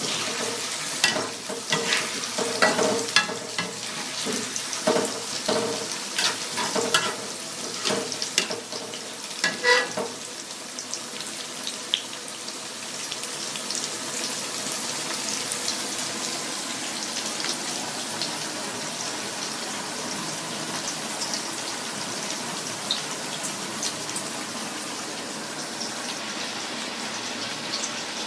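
Food frying in hot oil in a pan, a steady sizzling hiss. For the first ten seconds or so a utensil knocks and scrapes against the pan as the food is stirred; after that only the sizzling goes on.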